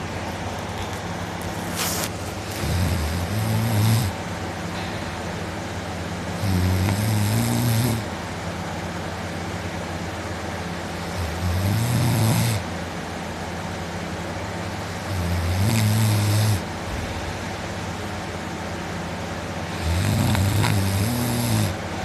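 A man asleep on his back snoring loudly: five long, low snores, one every four seconds or so.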